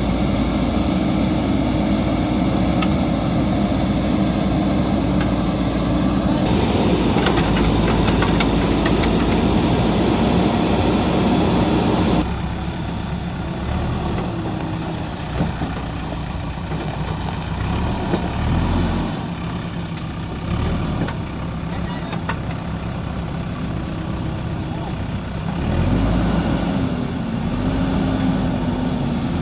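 JCB backhoe loader's diesel engine running while it works, its note changing abruptly about 6 and 12 seconds in. Near the end it revs up and falls back.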